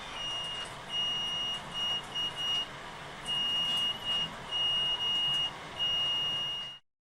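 Buzzer of a DIY laser alarm kit sounding one high steady tone in irregular on-off beeps, each a fraction of a second long, then cutting off near the end. This is the alarm triggering while the laser beam to its light-dependent resistor is blocked.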